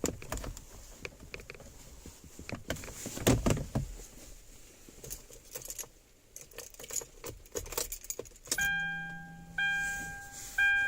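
Clicks and light rattles of plastic dash parts and wiring being handled. Then, about three-quarters of the way in, a car's electronic warning chime starts, a pitched ding repeating about once a second.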